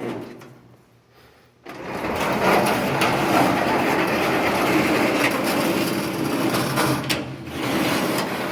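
A high-lift sectional garage door being pushed up by hand, its rollers rattling and rumbling along the tracks. The rattle starts about a second and a half in, breaks off briefly near the end, then goes on again. It is a noisy door running on cheap non-bearing plastic rollers.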